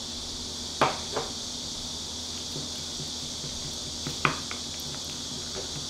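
A few sharp clinks of glass and a wooden spoon against a small glass mixing bowl while chili flakes are tipped in and a soy-and-gochujang seasoning sauce is stirred, the first clink the loudest, over a steady high hiss.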